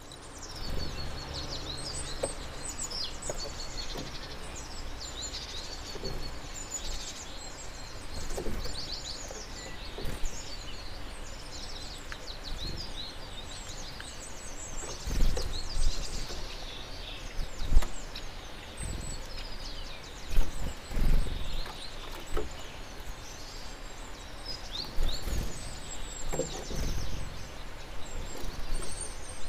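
Small songbirds chirping and calling in quick, high twitters throughout, with scattered low thumps and bumps.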